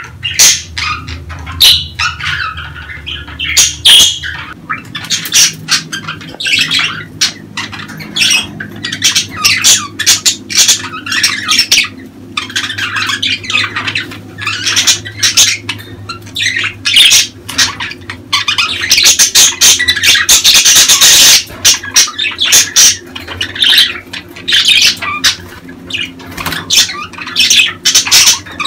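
Budgerigars chattering and squawking in quick runs of clicks and chirps, with a louder harsh stretch about two-thirds of the way through. The chatter is budgie courtship and mating calling.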